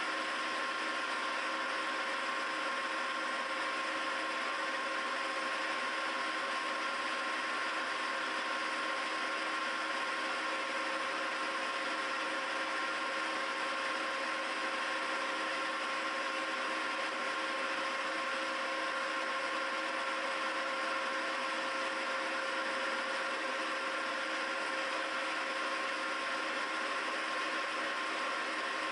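Milling machine running steadily while a single-flute stylus (D-bit) cutter finishes the threads of a silver-steel triple-start gear hob: a constant whir with a steady whine.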